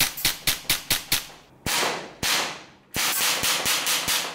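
Tokyo Marui Sentinel Nine gas blowback airsoft pistol (a custom SIG P226) fired in rapid strings, about fifteen sharp cracks, several a second, each shot cycling the slide.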